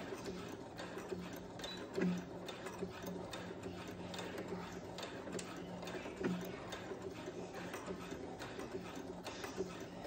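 Brother computerized sewing machine stitching bias tape onto fabric at a steady pace: a constant motor hum under rapid needle ticking, with two slightly louder knocks, about two seconds in and about six seconds in.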